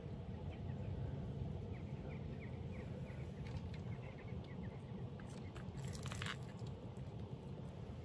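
Quiet outdoor ambience: a low steady rumble, with a series of faint short bird chirps in the first half and a brief cluster of clicks around the middle.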